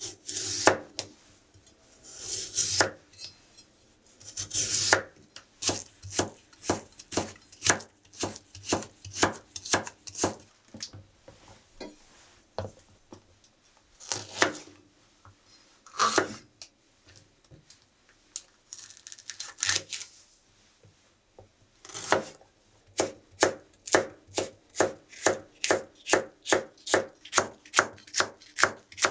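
Kitchen knife chopping vegetables on a wooden cutting board, first carrot and then green bell peppers cut into thin strips. Runs of sharp knocks with short pauses between them, and a couple of longer scraping strokes in the first few seconds. Near the end comes a quick, even run of about three cuts a second.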